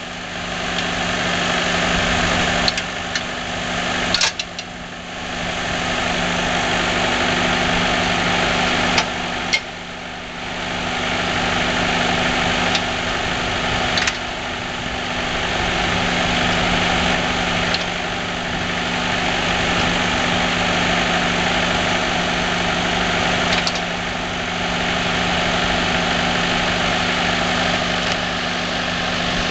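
Blackstone Beaver firewood processor's engine running steadily, with a few sharp knocks and clanks scattered through. The sound dips twice, about four and ten seconds in, and builds back up.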